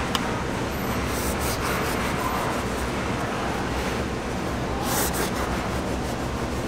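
Serrated bread knife sawing through burger buns on a plastic cutting board: scratchy, rasping strokes through the crust, a few strongest about a second in and again near five seconds. Under them runs a steady low kitchen hum.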